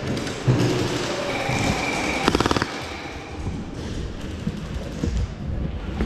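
Gel blaster firing a short rapid burst of about seven shots, a little past two seconds in, among scattered low thumps.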